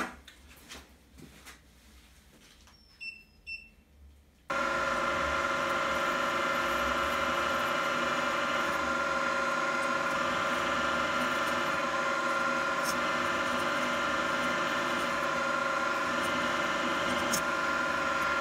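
Faint clicks at first, then about four and a half seconds in a drill-mill, likely an Optimum MB4, starts abruptly and runs with a steady whine as its twist drill bores into a mild steel (ST37) blank.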